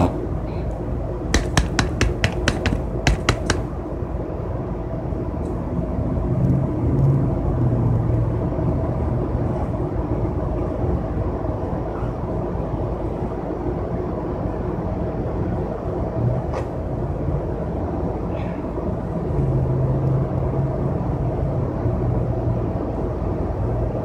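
Steady low rumble and drone of a moving passenger vehicle's cabin, heard from inside. A quick run of about ten sharp clicks comes about a second in, and the low hum swells twice.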